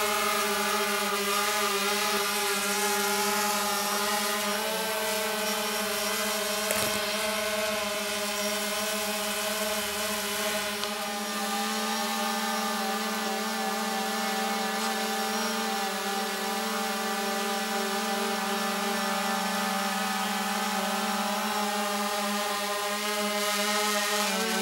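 DJI Phantom 3 Professional quadcopter flying overhead, its four propellers giving a steady buzzing hum that shifts slightly in pitch now and then as it holds and adjusts its position.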